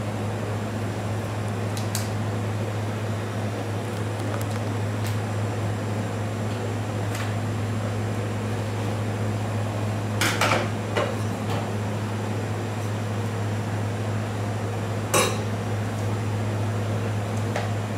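Scattered sharp metallic clicks and clinks of scissors and a knife working on a stainless-steel table while crocodile hide is cut away. There is a quick cluster about ten seconds in and a single louder clink about fifteen seconds in, over a steady low machine hum.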